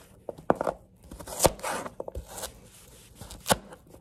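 Large kitchen knife chopping through raw peeled turnip root onto a cutting board: a handful of sharp, irregularly spaced chops, with softer scraping as the cut pieces are pushed together near the end.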